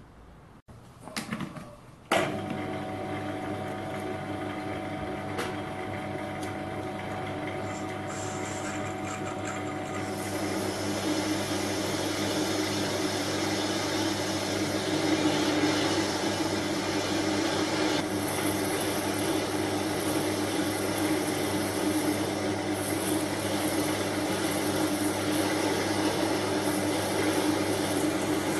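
A cheap Chinese metal lathe starts about two seconds in and runs at its slowest speed with a steady hum. From about ten seconds in, a heavy parting-off blade cuts into a large home-cast aluminium block, adding a growing noise of cutting over the hum.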